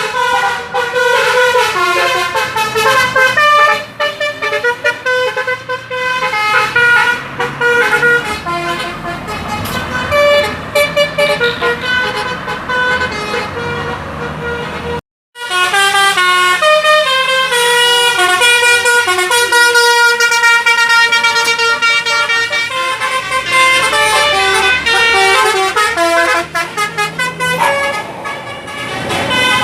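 A bus's telolet basuri musical horn playing quick melodies of several stepping tones. The sound cuts out briefly about halfway through, then another run of the melody begins.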